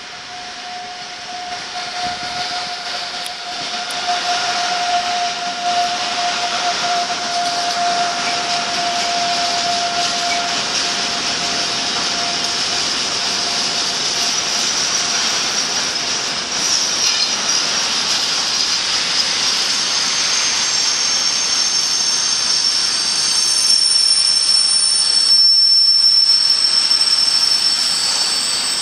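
Freight train passing, hauled by an ÖBB Taurus electric locomotive: a steady whine from the locomotive fades away over the first dozen seconds. The wagons then roll by with a continuous rumble and hiss, and thin high wheel squeals join in the last several seconds.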